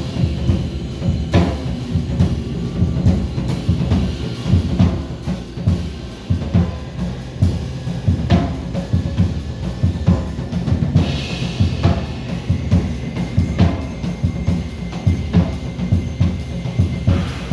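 Music with a busy, driving drum beat and heavy bass drum.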